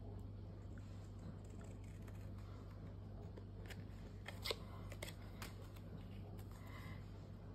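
Scissors snipping through printed card stock: a handful of faint, short snips and paper rustles, the loudest about halfway through.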